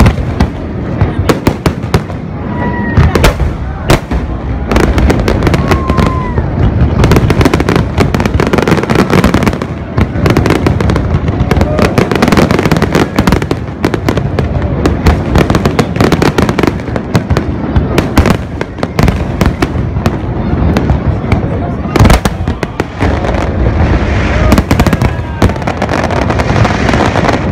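Fireworks display: aerial shells launching and bursting in a dense, continuous barrage of bangs and crackling, many bursts overlapping one another.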